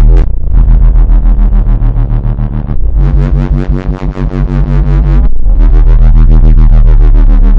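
Experimental electronic synthesizer effect: a loud, buzzy pitched drone with a deep bass, pulsing fast, that shifts to a new pattern about three seconds in and again about five seconds in.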